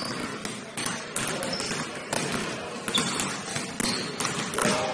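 Basketball bouncing on a gym floor: repeated, irregularly spaced thuds over the background noise of the game.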